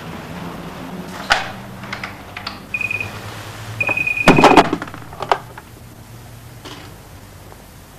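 Push-button desk telephone's electronic ringer sounding twice, a short ring then a longer one, cut off by the clatter of the handset being lifted from its cradle. A few sharp knocks come before the ringing, and another knock just after the pickup.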